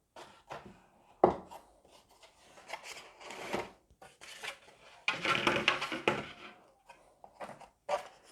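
Unboxing handling noise: cardboard and plastic packaging being rubbed and moved, with scattered light knocks. There is a sharp knock about a second in and a longer scraping rustle a little past halfway.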